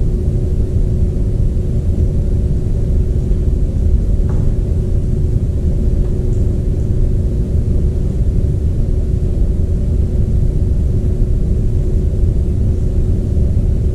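Steady low rumble with a constant mid-pitched hum: the background noise of building machinery in an empty room. A faint click about four seconds in.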